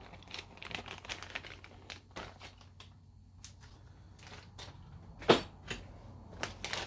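Clear plastic zip bag rustling and crinkling as it is handled, with scattered short clicks and taps. One sharper, louder click comes about five seconds in.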